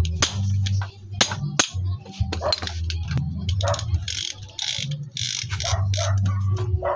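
Hand tools and metal parts worked on the exposed clutch side of a Honda Dream 100 engine during an overhaul. A few sharp metal clicks come in the first two seconds, then a run of rasping ratchet-like strokes a few seconds in, over a steady low hum.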